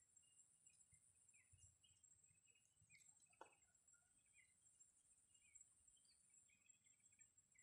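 Near silence with faint outdoor ambience: a steady high-pitched insect drone and scattered bird chirps, with one short falling whistle about three and a half seconds in.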